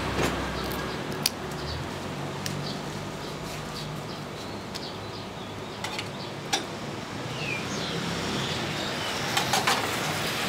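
Street-food stall cooking: a steady rushing hiss with sharp metal clinks now and then, three in quick succession near the end.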